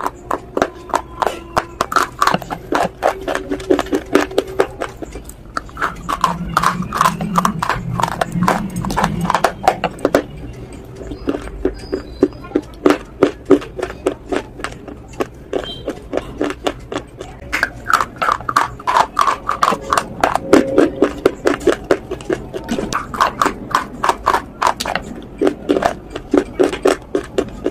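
Brittle white chalk-like sticks crunching as they are bitten and chewed, a rapid run of sharp cracks several times a second.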